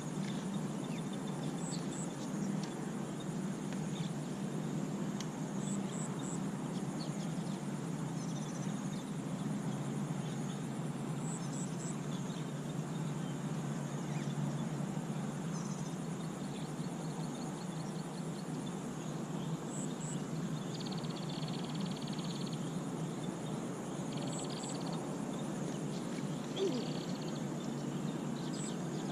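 Outdoor natural ambience: a steady low background hum of wind or water, with short, high double chirps every few seconds and a few brief higher calls in the second half.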